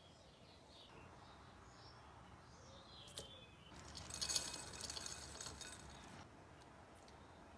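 Chopped pistachios poured into a ceramic dish, the grains pattering and clinking against the plate for about two seconds, starting a few seconds in.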